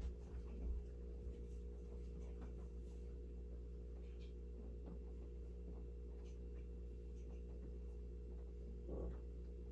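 Room tone: a steady low hum with a few faint steady tones, with scattered faint small clicks and a soft bump about nine seconds in.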